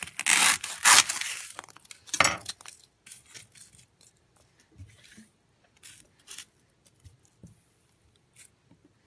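A knife blade sawing through a block of green craft foam: a few loud rasping strokes in the first two seconds or so. Then light knocks and rustles as the cut pieces are handled.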